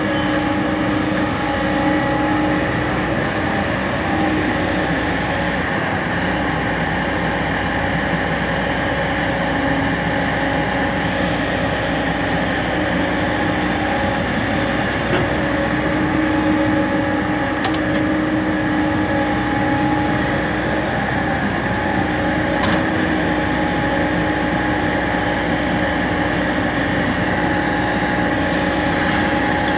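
Heavy diesel engine of a tracked excavator running steadily, a constant hum with a fixed pitch.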